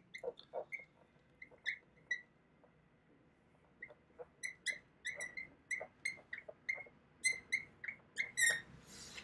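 Dry-erase marker squeaking on a whiteboard as it writes: a run of short, high squeaks, with a pause of about a second and a half after the first two seconds, then coming thicker and faster.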